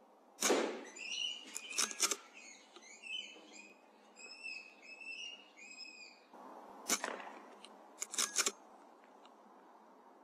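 A shot from a Weihrauch HW100 .22 PCP air rifle, followed by a run of short, high squeals from the hit rat lasting about five seconds. A second shot comes about seven seconds in, and each shot is followed by quick metallic clicks as the rifle is reloaded.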